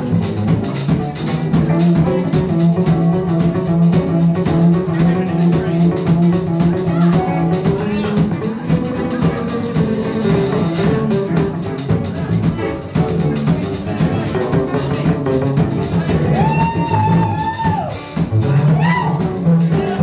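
Live band playing an up-tempo country-blues number on electric guitar, bass guitar, drum kit and keyboard, with a steady drum beat and bass line. Near the end a wavering, bending lead line comes to the front.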